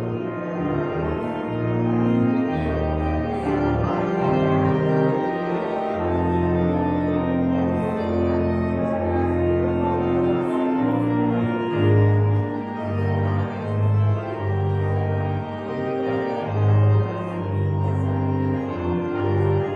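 Church organ played solo: slow, sustained chords over held bass notes, changing every second or two.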